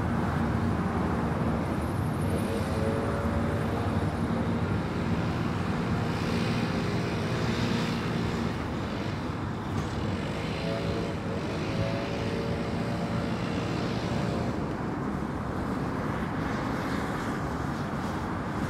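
Steady highway traffic noise. Twice, a pitched tone from a passing vehicle bends downward as it goes by.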